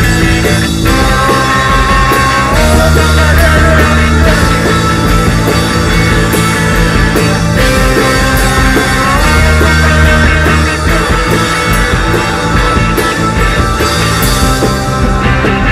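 A post-punk band playing live: distorted electric guitars through Laney amps, bass and a drum kit with steady cymbal hits, the guitars sustaining chords with sliding notes.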